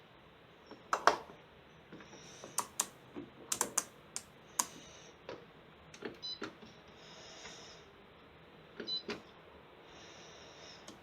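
Washing machine being set up by hand: a string of irregular sharp clicks and knocks, the loudest about a second in, with two short electronic beep patterns from the control panel, around six and nine seconds in.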